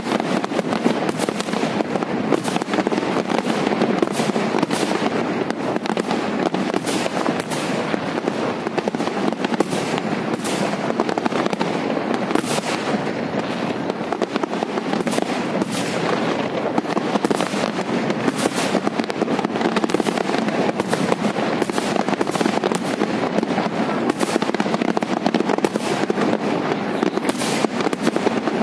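Aerial firework shells bursting in a dense, continuous barrage: overlapping bursts make a constant crackle, with frequent sharper bangs standing out.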